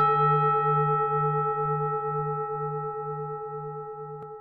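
A Buddhist bowl bell struck once and left to ring. Several tones fade slowly together, the lowest hum wavering in a slow beat. A faint click comes near the end.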